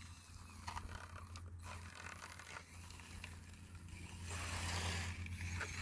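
Small RC crawler with a brushless motor driving slowly: a quiet, steady motor hum with scraping of the tires and chassis over the ground, which grows louder about four seconds in.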